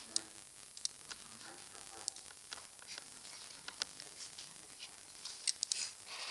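Scattered sharp clicks of a computer mouse being clicked, a few at a time with a quick cluster near the end, over a steady hiss.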